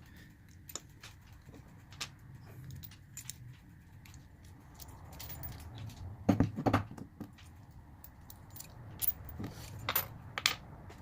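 Scattered small metallic clicks and clinks of a padlock and small hand tools being handled while the lock is taken apart. The loudest are a few knocks about six and a half seconds in and again near ten seconds.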